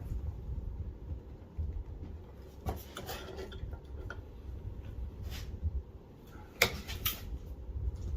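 Scattered metal clinks and clicks of a Knipex pliers wrench being worked on a nut in a vise, loudest about six and a half seconds in, over a low steady hum.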